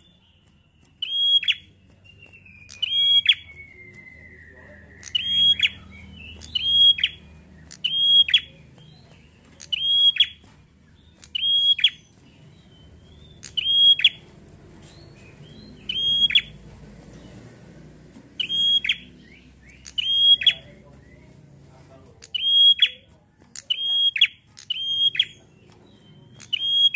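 Caged prenjak songbird calling persistently: a loud, sharp, high whistled note that falls steeply in pitch, repeated about once every second or so.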